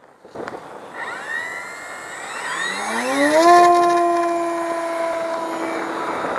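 The twin electric motors of a large RC model plane, each on a 6-cell LiPo pack, throttling up for takeoff: several whines climb in pitch over about two seconds, then hold as a loud steady whine at full throttle, sinking slightly lower near the end as the model lifts off.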